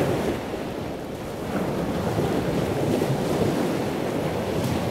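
Steady rushing, churning water noise, deep and dense, with wind-like buffeting on the microphone.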